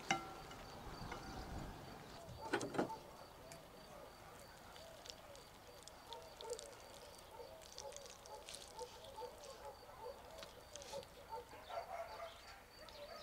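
Soft clicks and scrapes of a fork on a bamboo board and of eating, with one louder knock about two and a half seconds in, over faint chirping animal calls.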